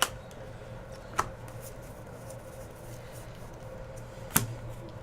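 Trading cards being handled, with three sharp taps or clacks as cards or packs are set down, over a steady low hum.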